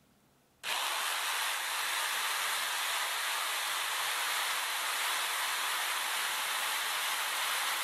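Corded RYU electric jigsaw sawing through a wooden board, starting abruptly about half a second in and then running steadily at full speed.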